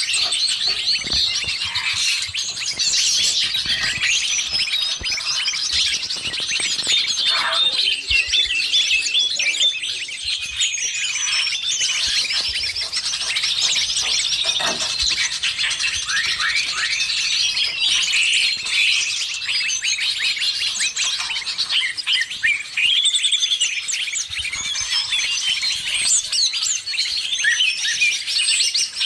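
Dense chorus of many small birds chirping, trilling and calling over one another, mixed with green leafbird (cucak ijo) song. This is a 'burung ribut' lure recording used to call in birds.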